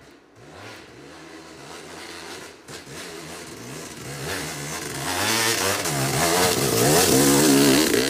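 Yamaha YZ250 two-stroke dirt bike engine revving up and down over and over under load on a hill climb, getting louder as it nears and passes close by, loudest in the last few seconds.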